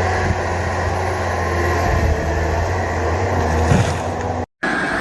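A heavy forestry machine's engine running steadily with a low drone. The sound cuts out for a moment about four and a half seconds in.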